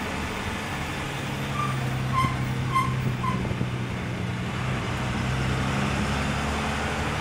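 A large vehicle's engine running steadily, heard from inside the cab. Four short electronic beeps come about half a second apart in the first half.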